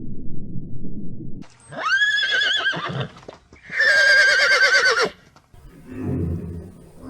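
Horse whinnying twice, two long trembling neighs, the second louder. Before them there is a low noisy sound for about a second and a half, and a short low sound follows near the end.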